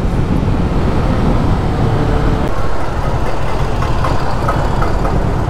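Kawasaki Ninja 650's parallel-twin engine running under way, heard from the rider's seat through a steady mix of wind and road noise.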